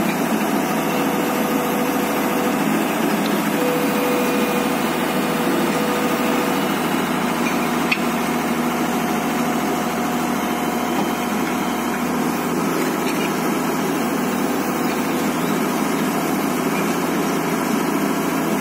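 Tata Hitachi EX110 Super excavator's diesel engine running steadily at an even speed.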